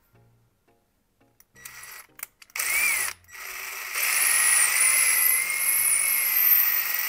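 Electric drill boring a pilot hole into a small wooden handle. The drill whines into life about two and a half seconds in, stops for a moment, then runs steadily with a wavering motor pitch.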